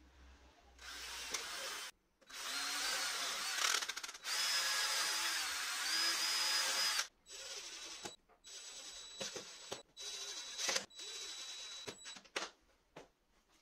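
Electric drill running in several bursts: a short run, then a longer, louder run whose motor pitch dips and rises as it loads, then a string of shorter, quieter runs.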